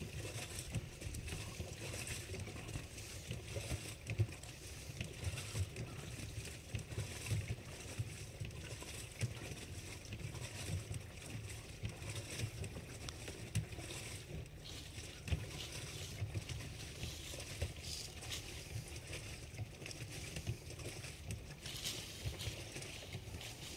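Wind buffeting the microphone outdoors, an uneven low rumble that comes and goes in gusts.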